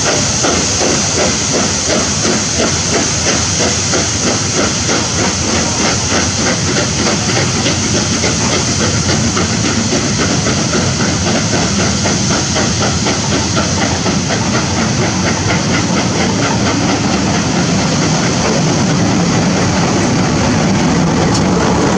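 Two steam locomotives, an LNER B1 4-6-0 and an LMS Black Five 4-6-0, double-heading a passenger train as it draws away: rapid exhaust chuffs over a steady hiss of steam. A low rumble of the coaches rolling past grows in the last few seconds.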